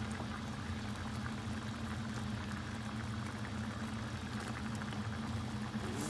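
Creamy tomato-and-cream seafood sauce simmering and bubbling in a stainless steel pan on a gas burner, a steady fine crackle over a low hum.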